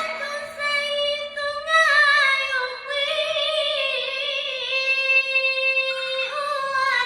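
A single high-pitched voice reciting the Quran in melodic style, drawing out long notes with wavering ornaments and taking a short break for breath about six seconds in.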